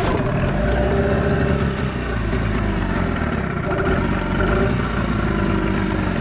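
An engine running steadily, starting suddenly at the opening.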